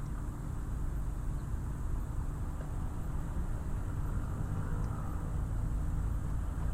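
Harbour ambience dominated by a steady low engine rumble with a faint constant hum, and a fainter wash of background noise above it.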